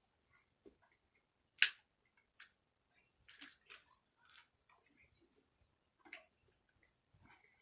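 Close-miked chewing and eating sounds of a hamburger and chili cheese fries: soft scattered mouth clicks and short wet bursts, with one sharper click about one and a half seconds in.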